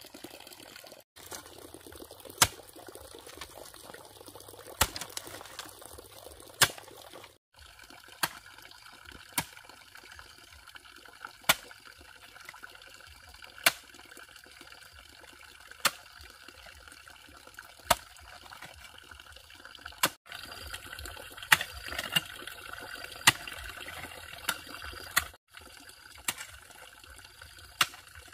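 A steel hoe strikes stony earth with a sharp knock every one to two seconds. A steady trickle of water runs underneath.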